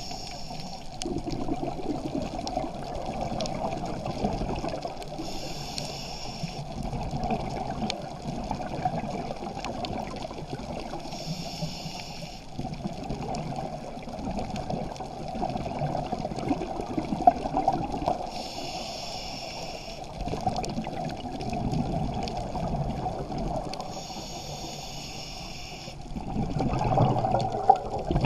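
Underwater sound recorded by a diving camera: a steady muffled water rush, with a brief hiss of a scuba diver's exhaled bubbles about every six seconds, five times in all. The rush grows louder near the end.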